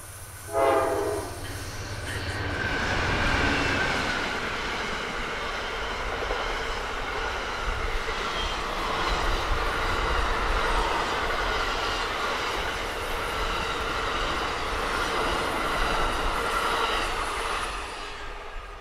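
A short horn blast from the approaching Amtrak train's lead diesel locomotive about half a second in. Then the train passes close by: the two GE Genesis diesels (P42DC and P40DC) go by, followed by a steady rumble of passenger-coach wheels on the rails, which fades near the end.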